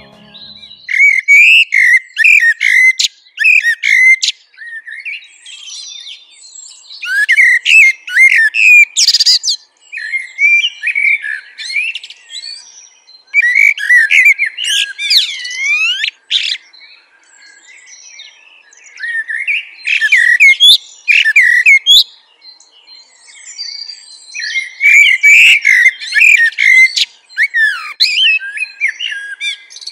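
Songbird singing: fast chirps, trills and whistled sweeps in loud phrases a few seconds long, with short pauses between them.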